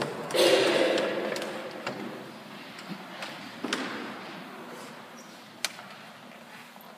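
A brief burst of voices just after the start dies away slowly in a large church's echo. A few sharp knocks and hard-soled footsteps follow on the church floor.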